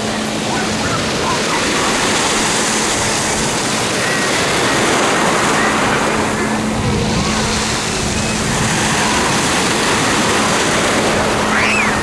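Small Black Sea waves breaking and washing up a pebble shore, with a heavier wave surging about seven seconds in; distant voices and shouts of bathers behind.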